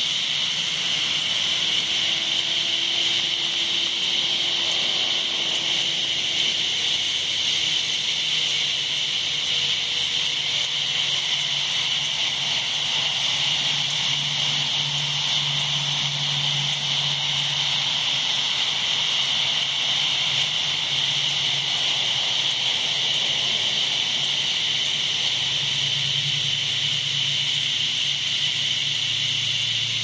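A chorus of annual cicadas singing: a loud, steady, high-pitched buzz that holds without a break.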